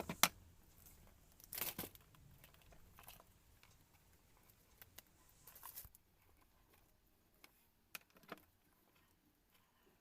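Stiff plastic cable jacket of an old printer cable being cut and peeled away, giving short scattered crackles and tearing snaps, the sharpest just after the start and a few more clustered near the middle and end.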